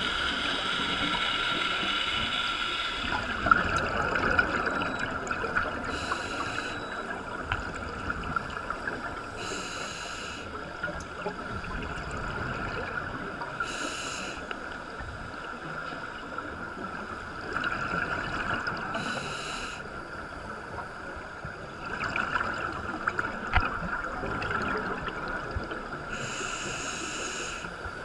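Scuba regulator breathing heard underwater through a GoPro's waterproof housing: a short burst of exhaled bubbles about every four to five seconds over a steady muffled underwater hiss.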